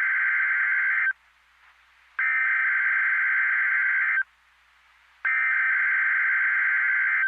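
Emergency Alert System SAME header: three bursts of digital data tones, each about two seconds long with about a second's pause between them, the first ending about a second in. This coded header marks the start of an emergency alert broadcast.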